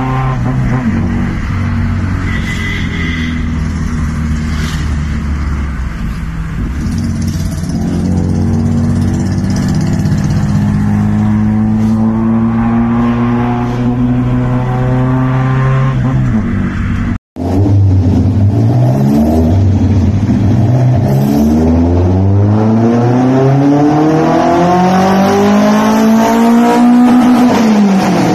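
Maruti Suzuki Zen with a custom aftermarket exhaust, engine running and revving. Its pitch first holds, then climbs slowly. After a sudden cut it revs up and down several times, and the last and longest rev climbs highest before falling away.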